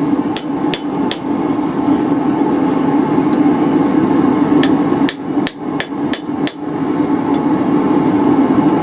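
Hammer blows on a hot railroad spike held in an anvil's hardy hole, driving a bend tighter: three quick strikes, a pause of a few seconds, then a run of about six strikes. A steady drone runs underneath.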